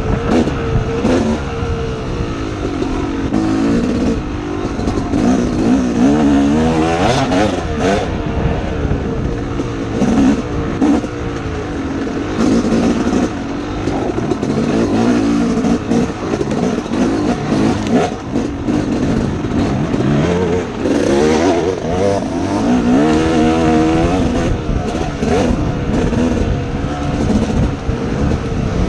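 Dirt bike engine heard up close from the rider's position, revving hard and easing off again and again, its pitch rising and falling every second or two as the rider works the throttle along a tight trail.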